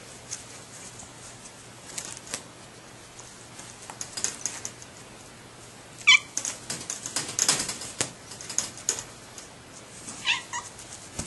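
Cats in a wire crate meowing twice, once about six seconds in (the loudest sound) and again near the end. Between the meows there are quick light clicks and rattling as the cats move about and paw at the crate.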